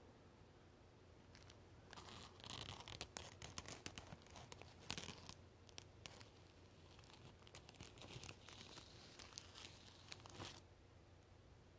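A cat close to the camera's microphone, with a run of scratchy rustles and sharp clicks starting about two seconds in and stopping about two-thirds of a second into the last second and a half.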